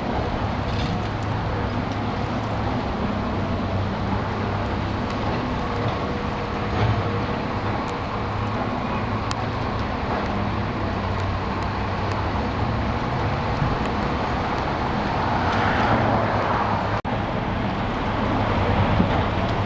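Cat 345BL hydraulic excavator's diesel engine running steadily under working load. Louder rushing and scraping noise swells about three quarters of the way through, with a sharp knock near its end.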